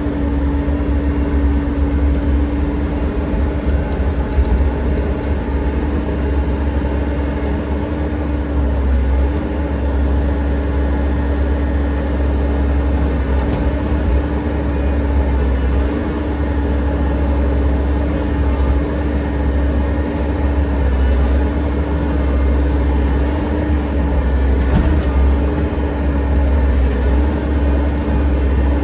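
Excavator's diesel engine running steadily: a loud, even rumble with a constant pitched hum that wavers slightly a few times.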